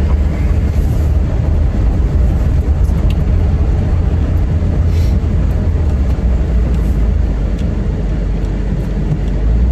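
Steady low rumble of a vehicle being driven, heard from inside the cabin.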